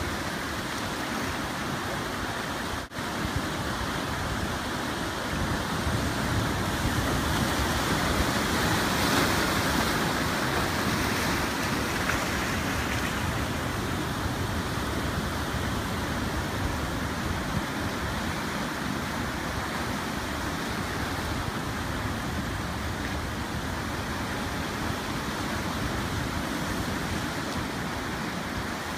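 Ocean surf washing in continuously, swelling louder for a few seconds near the middle. A brief dropout cuts the sound about three seconds in.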